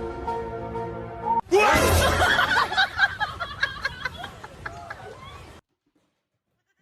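Background music with steady sustained notes, cut off about a second and a half in by a loud burst of overlapping short squeals and laugh-like yelps that fade over about four seconds and then stop abruptly.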